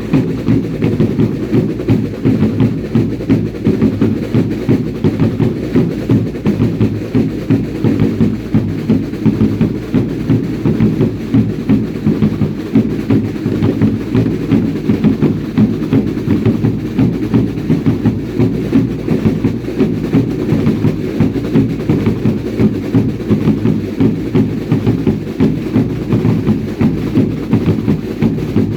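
Drums of a Baile Indio dance troupe beating a fast, steady, driving rhythm, with no melody standing out above the beat.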